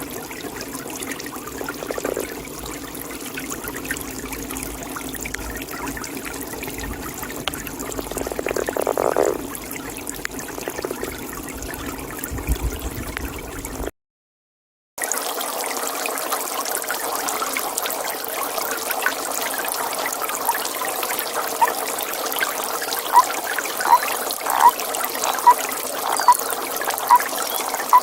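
Pond water trickling steadily while a toad calls twice in the first half, each call about a second long. After a brief dropout, a toad gives a steady series of short, evenly spaced calls, a little more than one a second, over the water.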